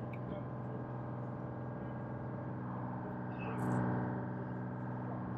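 Charter fishing boat's engine running under way, a steady hum that swells briefly about two-thirds of the way through.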